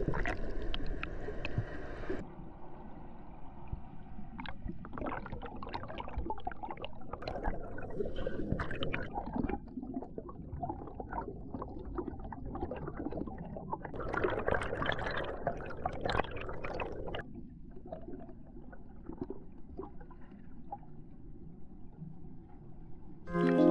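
Pool water gurgling and sloshing with crackly, bubbly splashes. The sound changes abruptly a few times, as one short clip cuts to the next.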